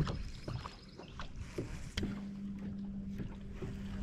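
A bass boat's electric trolling motor comes on about halfway through and hums with a steady low tone, over a low rumble of wind and water against the hull and a few light knocks.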